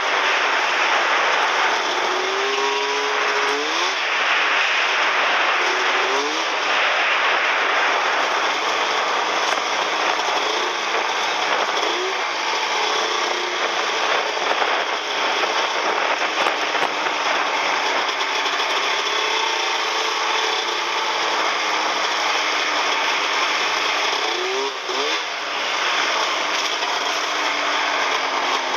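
Snowmobile engine running under way, its pitch rising several times as the throttle is opened, over a steady rushing noise.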